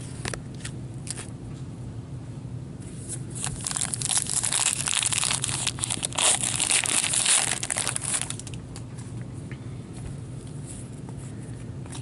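A hockey card pack wrapper being torn open and crinkled, loudest for about five seconds in the middle. A few light clicks of cards being handled come before it.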